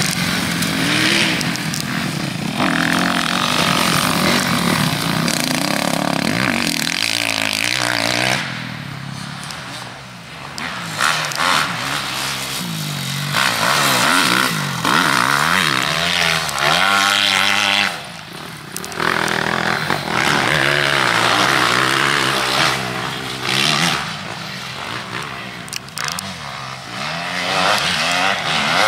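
Off-road motorcycle engine revving up and down under hard throttle, backing off twice, briefly each time, with rushing wind noise over the microphone.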